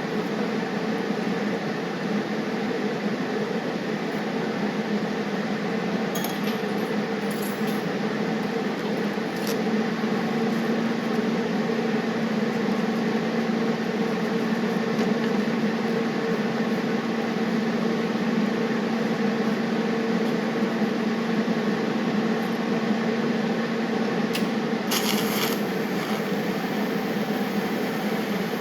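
TIG welder running: a steady electric hum that gets a little louder about ten seconds in, with a few faint clicks and a short sharp noise near the end.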